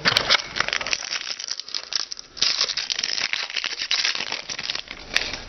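Foil trading-card pack wrapper being torn open and crinkled by hand, a dense crackling with a short lull about two seconds in.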